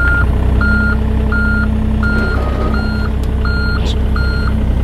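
John Deere 35G mini excavator's travel alarm beeping steadily, about three beeps every two seconds, over the steady running of its diesel engine: the alarm that sounds while the tracks are moving as the machine drives off a trailer.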